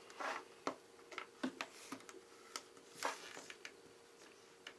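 Faint, irregular clicks, taps and rustles of small magnetic paper dress-up pieces being picked up and set down on a wooden table and metal tin.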